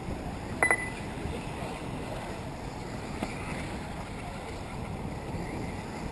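Steady wind rush on the microphone, with a short double electronic beep about half a second in, the signal of a race lap-timing system as a car crosses the line.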